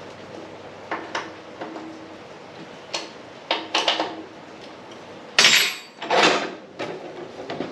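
Metal tubing and tools being handled on a workbench: scattered clanks and knocks, some with a short ring, and two louder scraping sounds about five and six seconds in.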